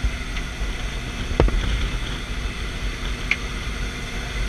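Jump plane's engine noise and wind rushing through the open door, a loud steady rumble, with a sharp knock about a second and a half in.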